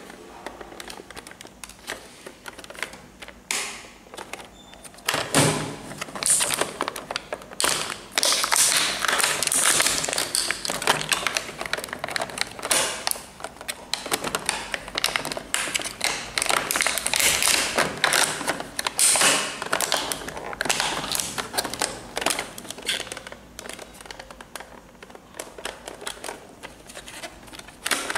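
Plastic wrapping crinkling and rustling, with small plastic toy kitchen pieces clicking and knocking together, as a toy kitchen set is unwrapped and handled. The crackling is irregular and busiest from about five seconds in until a few seconds before the end.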